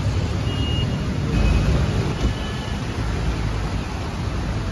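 Steady rushing noise of a flooded, fast-flowing river mixed with road traffic, carrying a heavy low rumble throughout.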